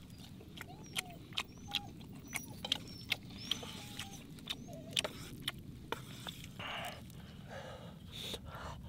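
Close-up eating sounds of a person chewing noodles: a steady run of sharp wet mouth clicks and smacks, about two or three a second, with two short slurps in the last third.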